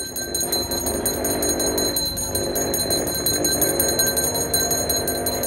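Brass hand bells of an aarti, rung rapidly and without a break, each strike sharp and even.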